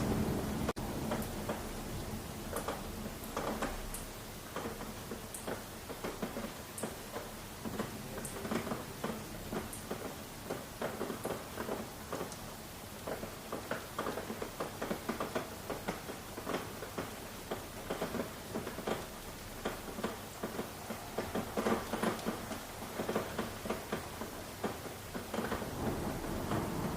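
Steady rain with many separate drops tapping irregularly on a surface, and a few sharp high ticks in the first part. A low thunder rumble fades just after the start and swells again near the end.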